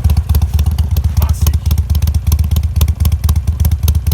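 Harley-Davidson Sportster 883 Iron's air-cooled V-twin running at idle through an aftermarket Penzl exhaust, a steady, fast pulsing beat with no revving.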